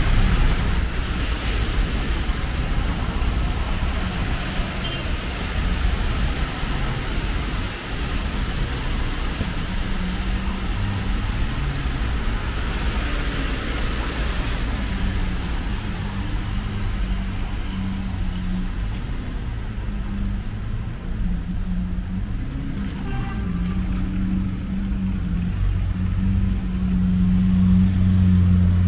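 Road traffic on a rain-wet street: a double-decker bus and cars passing with tyre hiss, then a steady low hum that grows louder near the end.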